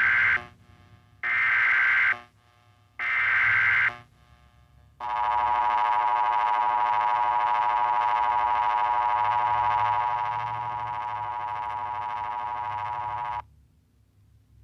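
Emergency Alert System test signal: three bursts of about a second each of SAME digital header data tones, then the steady two-tone EAS attention signal for about eight seconds, which drops in loudness partway through and cuts off suddenly.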